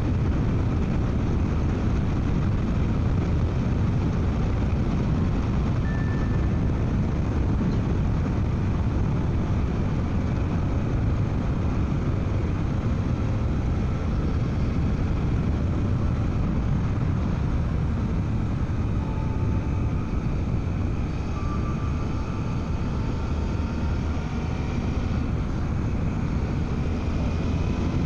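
Wind rushing over a motorcycle helmet, with the 2024 Suzuki V-Strom 800DE's parallel-twin engine running underneath, heard from inside the helmet while riding. The sound is a steady, loud rush with a heavy low end throughout, and a few faint pitched lines shift in the second half.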